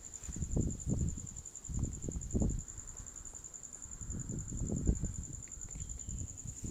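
Hands smoothing and shifting blouse fabric on a table: soft, irregular rustling and brushing. A steady high-pitched pulsing trill runs underneath throughout.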